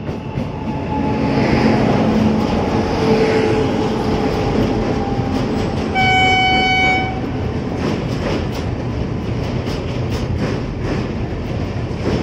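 Electric locomotive and passenger coaches passing close by on the adjacent track, a steady rumble and rattle. A single horn blast of about a second sounds near the middle. As the coaches go by, wheels click over the rail joints.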